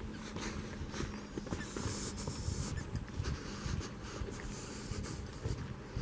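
Footsteps of a hiker walking on a damp dirt forest trail with leaf litter, about two steps a second.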